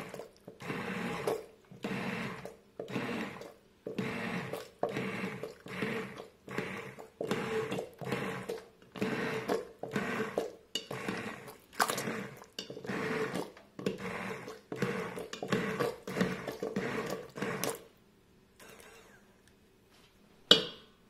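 Immersion (stick) blender running in soup in a stainless steel pot, a steady motor hum under churning that surges and falls a little over once a second, stopping about three seconds before the end. A single sharp clink follows near the end.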